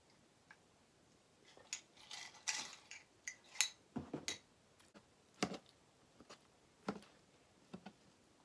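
Scattered clicks, clinks and short scrapes of a metal fork and dishes: a fork working cheesy fries on a metal sheet pan, with a dull knock about four seconds in.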